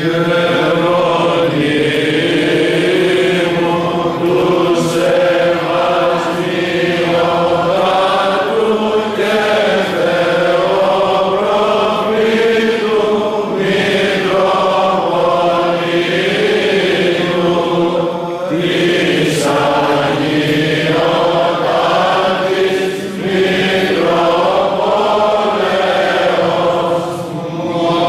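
Greek Orthodox Byzantine chant: voices singing a slow, gliding melodic line over a steady held low note, with short pauses between phrases.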